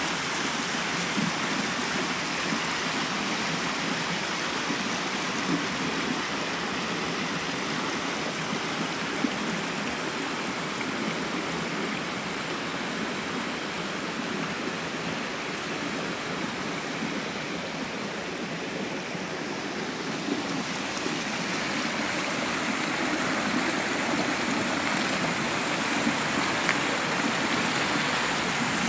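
Steady rush of running water, as from a forest stream, with a few faint ticks over it.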